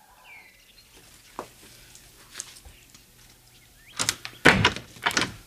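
A door being handled: a few faint clicks, then three loud knocks close together about four seconds in.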